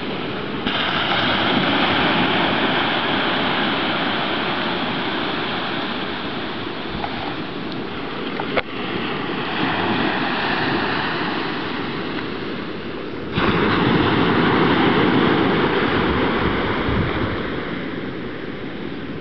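Steady rushing noise that steps up in loudness about a second in and again about two-thirds of the way through, easing off near the end, with a single sharp click near the middle.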